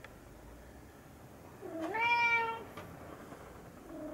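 Domestic cat meowing once, about two seconds in: a drawn-out meow that rises at the start and then holds its pitch.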